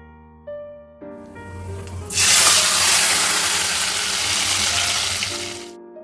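Soft piano music with a loud rushing noise that builds over about a second and cuts off suddenly near the end.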